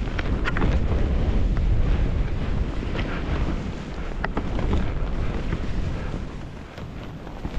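Wind buffeting the camera's microphone as skis run through tracked-up powder, with the hiss and scrape of snow under the skis. Scattered sharp clicks and knocks, a handful in all, come through the rumble.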